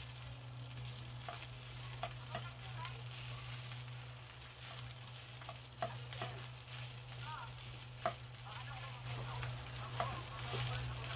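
Fried rice sizzling in a frying pan as it is stirred and turned with a spatula, the spatula ticking against the pan now and then, loudest about six and eight seconds in. A steady low hum runs underneath.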